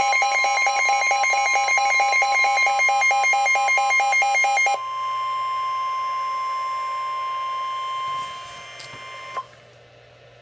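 Emergency Alert System attention signal, a steady high alarm tone that precedes a severe thunderstorm warning message. For the first four to five seconds a rapid pulsing beep pattern sounds over it, then the tone continues alone until it cuts off suddenly about nine seconds in.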